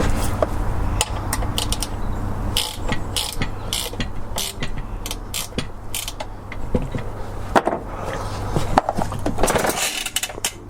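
Irregular metallic clicking and ratcheting, as of a ratchet wrench tightening a fitting on a concrete breaker, over a steady low hum.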